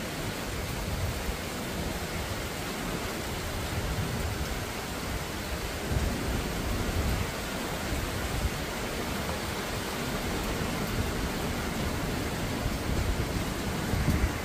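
Steady typhoon rain falling, heard as an even hiss, with stronger low rumbles about six seconds in and near the end.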